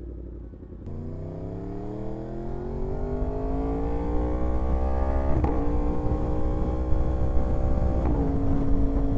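Yamaha R1 sport bike's inline-four engine accelerating hard through the gears: its pitch climbs steadily from about a second in, drops suddenly at an upshift about five seconds in, climbs again and drops at a second upshift near the end.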